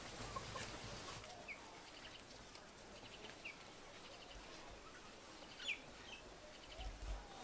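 Faint birds calling, with a few short chirps and quick runs of little clucking notes spread through. A couple of low thuds, the stronger one near the end.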